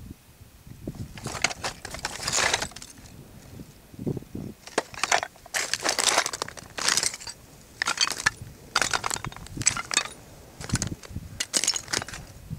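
Footsteps on loose flat shale, the stones crunching and clinking underfoot in a series of steps about one a second.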